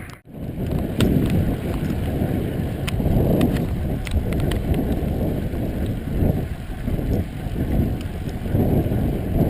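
Wind buffeting the microphone while riding a bicycle: a steady, noisy low rumble, with a few light clicks or rattles in the first half. The sound drops out briefly right at the start.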